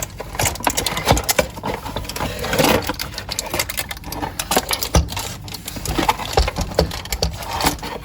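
Dense, irregular clicking and tapping with a few louder knocks: hands working small objects and materials while making slime.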